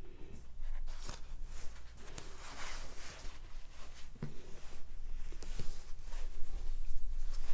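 Rustling and handling of a faux fur collar as rolls of toilet paper are pushed inside it, with a few light knocks against the countertop.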